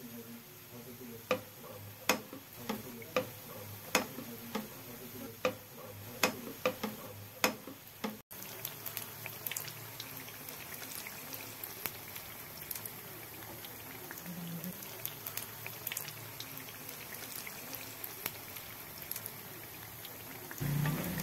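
Batter-coated onion pakoras deep-frying in hot oil in a pan. For the first eight seconds the oil gives sharp, irregular pops about once a second; after that it settles into a steady sizzle with many small crackles.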